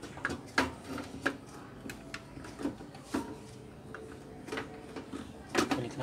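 Handling noises from reassembling a microwave oven: a string of light irregular clicks and knocks as wiring is tucked in and the plastic control panel is fitted back onto the metal chassis, the sharper knocks about half a second in and near the end.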